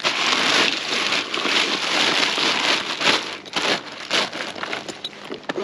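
Ice cubes poured out of a plastic ice bag into an insulated fish bag, the plastic crinkling and the ice rattling. The sound is a dense rush for the first three seconds or so, then thins to scattered crackles.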